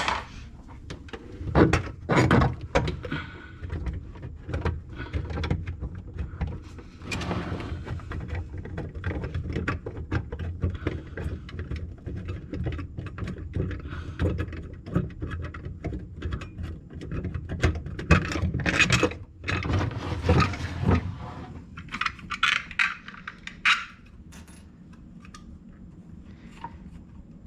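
Hands handling and pulling an Ethernet cable and tools: irregular clicks, knocks and scraping, with a few louder rustling stretches about two-thirds of the way through.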